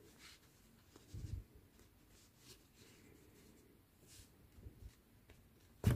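Faint rustling and scraping of yarn being drawn through a crocheted piece with a sewing needle as the yarn end is hidden, with a soft low bump about a second in and a sharp click near the end.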